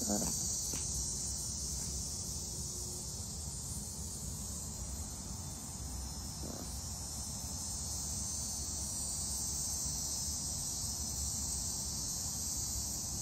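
Insects chirring in a steady, unbroken high-pitched drone, with a low rumble underneath.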